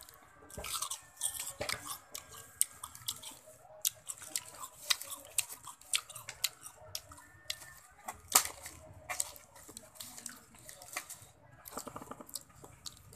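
A person biting and chewing crunchy raw fruit close up: an irregular run of wet crunches and mouth clicks, loudest about eight seconds in.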